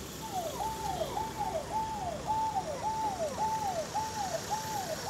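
Police escort vehicle's electronic siren, a repeating note that rises quickly, holds and then slides down, about twice a second. It starts a moment in.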